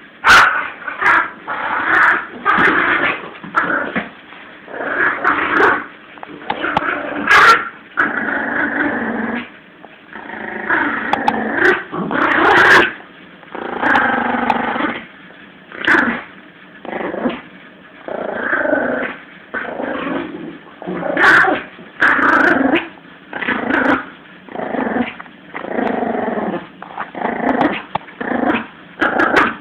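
Yorkshire terrier puppy growling in repeated rasping bursts, roughly one a second, while tugging on a toy: playful tug-of-war growling, not aggression.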